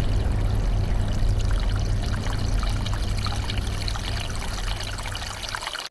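A low rumble under a steady rushing hiss like running water, fading over the last second and cutting off at the end.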